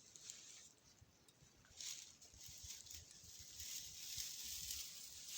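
Small campfire of damp sticks, newspaper and grass being coaxed alight: soft swelling hiss and rustling with faint crackles and small knocks.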